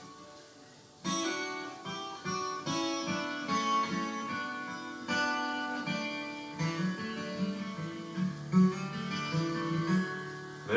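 Strummed acoustic guitar music played back from a cassette tape on a Panasonic cassette deck. The guitar comes in about a second in after a brief lull, and lower notes grow stronger in the second half.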